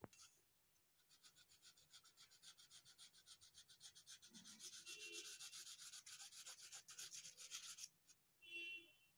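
Faint crayon scribbling on paper: a gray crayon rubbed quickly back and forth in even strokes, several a second, as an area is shaded in. It starts about a second in, stops a second before the end, then gives one short extra scrub.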